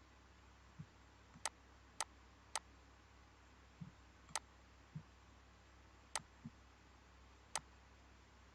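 Quiet room tone with about six sharp, irregularly spaced clicks and a few softer low thumps in between.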